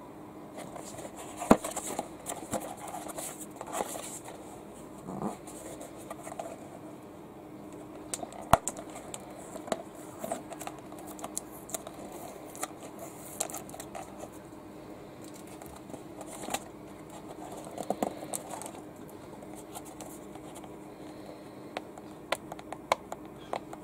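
Cardboard box being handled and opened by hand: cardboard scraping, rubbing and flaps sliding, with scattered sharp clicks and taps. The loudest clicks come about 1.5 s and 8.5 s in.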